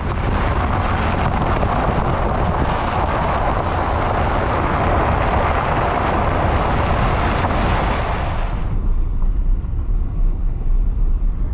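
A vehicle being driven, with a steady low road-and-engine rumble. A loud rushing hiss lies over it and cuts off suddenly about three-quarters of the way through, leaving only the rumble.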